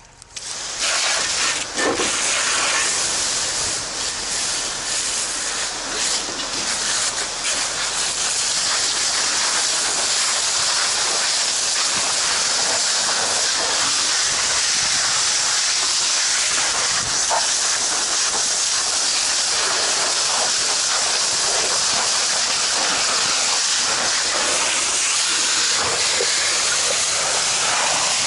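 Fire hose nozzle spraying a jet of water onto burning debris: a loud, steady hiss that starts about half a second in. It is uneven at first, then holds even.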